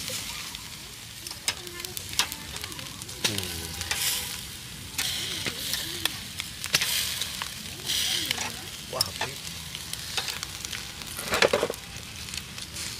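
Marinated pig intestines (phèo) sizzling on a grill, with many short sharp pops and crackles over a steady high hiss.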